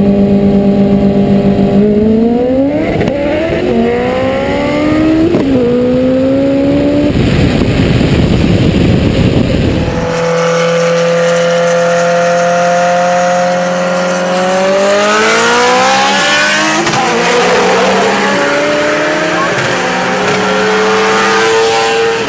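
Turbocharged Honda K20 engine at wide-open throttle in a roll race, its pitch climbing through the revs and dropping sharply at each upshift. About ten seconds in the sound cuts to a second climbing engine note that shifts once and pulls again.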